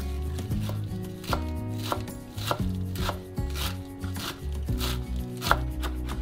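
Chef's knife chopping fresh parsley on a bamboo cutting board, sharp blade strikes about every half second, one louder near the end, over soft background music.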